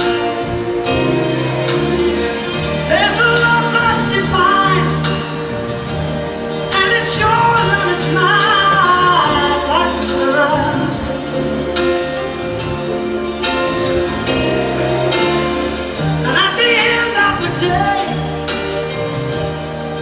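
A song with a lead singer over a bass line and a steady beat.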